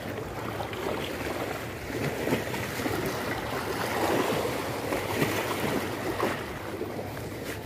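Small sea waves washing and lapping, with wind on the microphone; a steady, rushing noise that swells a little in the middle.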